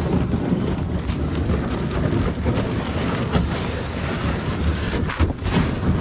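Wind buffeting the microphone in a steady low rumble, with footsteps crunching on gravel.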